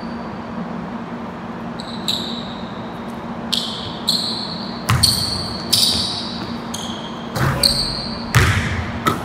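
A basketball being dribbled on a hardwood gym floor, its bounces coming as thuds mostly in the second half. Sneakers give short, sharp squeaks on the boards as the players cut, echoing in a large gym.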